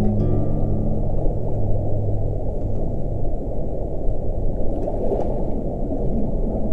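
Ambient film-score sound design: a dense, muffled, water-like rushing with low sustained drone notes that fade out about two seconds in.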